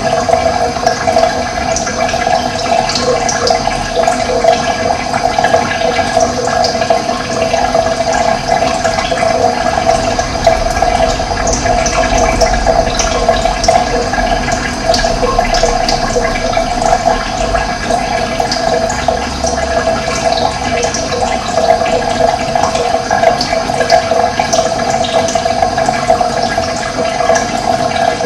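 Running water flowing steadily, a continuous rushing sound, with brief high-pitched sounds scattered over it.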